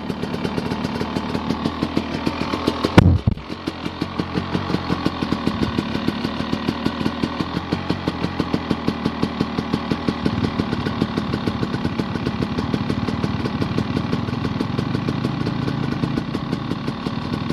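Honda dirt bike engine idling with steady, even firing pulses. A single loud bang breaks in about three seconds in, and the engine keeps running.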